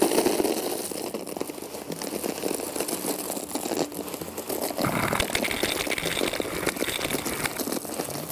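Gravel pouring out of a bag into a trench onto a corrugated drain pipe: a steady rush of many small stones clicking and rattling.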